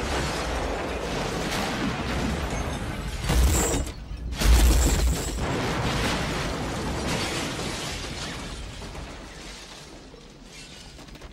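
Film sound effects of wooden buildings exploding, with a heavy low rumble and debris crashing and clattering. The two biggest blasts come about three and a half and four and a half seconds in, then the rumble dies away.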